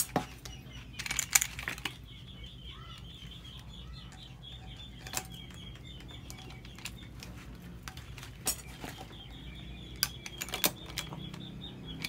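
Hand pop-rivet gun setting rivets in the end cap of a motorcycle open-pipe muffler: scattered sharp metal clicks and snaps, with a quick cluster about a second in and single ones later.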